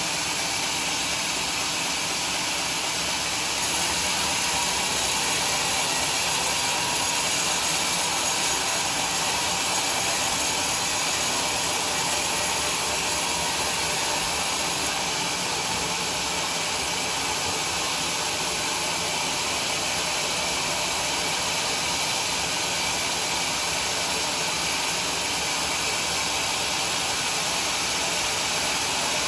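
Sawmill saw running steadily through a teak log: an unbroken, even noise with a faint steady whine over it.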